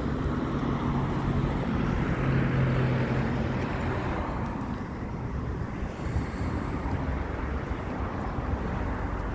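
Road traffic noise: a motor vehicle's engine hum swells as it passes, loudest about two to three seconds in, over a steady background of traffic.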